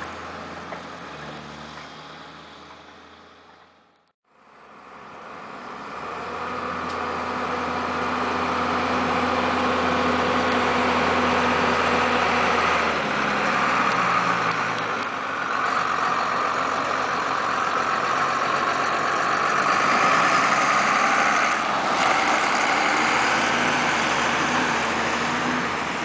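Large farm tractor diesel engines running under way with mounted reversible ploughs: one fades as it moves off and cuts out about four seconds in, then another builds as it approaches, drops in pitch about halfway through as it slows, and stays loud as it passes close.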